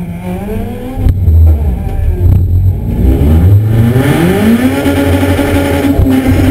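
Race car engine, heard from inside the stripped, caged cabin, revving up at the start line and launching about a second in, which brings a sudden jump in loudness. The revs dip briefly about two and a half seconds in, then climb steadily under hard acceleration and hold level near the end.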